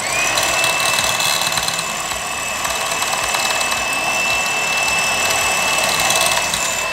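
Electric hand mixer switched on and running steadily, its beaters whirring through a runny egg-and-sugar cake batter with a steady high-pitched whine.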